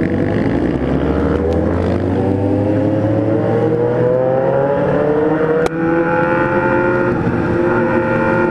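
Kawasaki Z1000's inline-four through a 4-into-1 exhaust, accelerating under load with its pitch climbing steadily. A quick gear change comes about five and a half seconds in, and then the engine pulls on, rising more gently.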